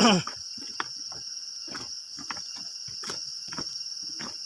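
Insects keeping up a steady high-pitched drone, with irregular short scuffs and knocks over it.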